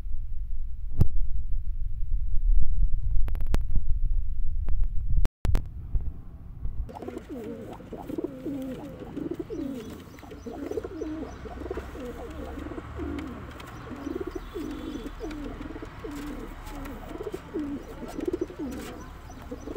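A low rumble for the first five seconds, then, after a brief gap, domestic pigeons cooing over and over, a rising-and-falling call repeated about once or twice a second.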